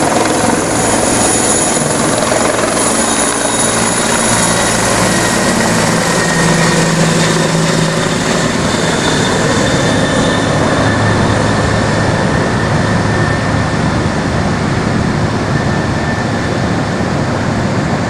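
Helicopter rotor and turbine noise as it lifts off a helideck and flies away. The higher hiss fades about halfway through, while a loud, steady rumble carries on at the same level.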